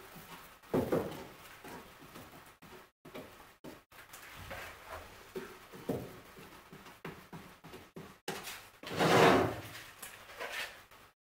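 Small handling knocks and brush scuffs as epoxy is brushed onto a wooden cleat strip and the tin is handled. About nine seconds in there is a louder scrape, under a second long, as the wooden strip slides across the plywood deck.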